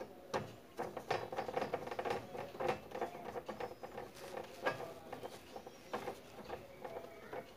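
Hand screwdriver driving a screw through a metal wall-mount bracket into the back of an LED TV, making a run of irregular clicks and scrapes.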